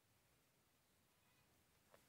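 Near silence: faint room tone, with one brief faint tap near the end.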